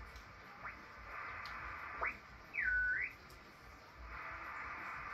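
Receiver audio from a Ten-Tec HF transceiver being tuned across the band on sideband: a narrow band of hiss that drops out and returns, with thin whistles sweeping in pitch as the dial passes carriers. The operator suspects the band noise comes from his own or the neighbour's solar installation.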